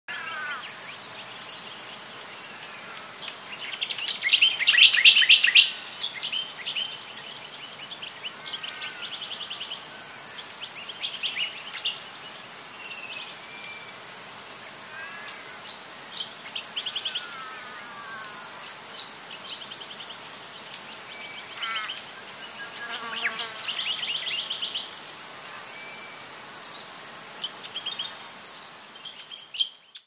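Steady high-pitched insect buzz, like crickets, with songbirds chirping and trilling over it; the loudest run of fast trills comes about four to six seconds in. It fades out at the end.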